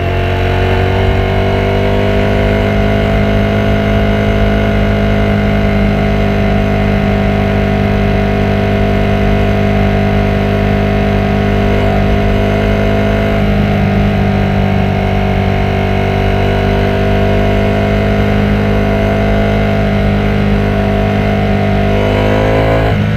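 Ducati Panigale V4S's V4 engine pulling at a steady engine speed under way, its note even and sustained. The pitch rises a little at the start and dips briefly then climbs again near the end.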